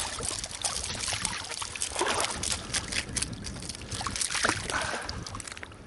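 Water sloshing and trickling at the shore, with many scattered clicks and rustles of handling as a small hooked mullet wriggles while being unhooked.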